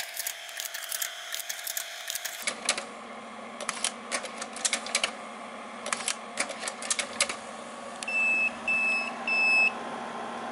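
Slide projector and camera clicking in quick clusters as the slide-scanning trigger box alternately fires the camera shutter and advances slides, over a low steady hum. Near the end the trigger box gives three short high beeps, signalling the end of the run and the frame count resetting to zero.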